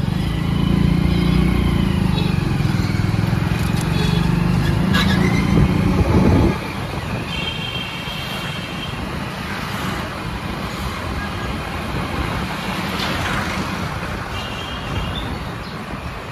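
A motor vehicle's engine running close by, loud for about six seconds, then dropping away suddenly and leaving a quieter hum of street traffic.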